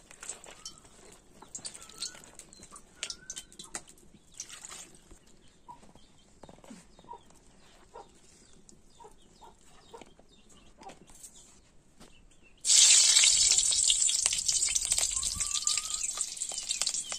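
Hot oil in a wok bursts into a loud sizzle about two-thirds of the way through and slowly dies down as food goes into it. Before that, soft clicks and rustles of cut gourd pieces being handled on plates, with a few faint bird calls.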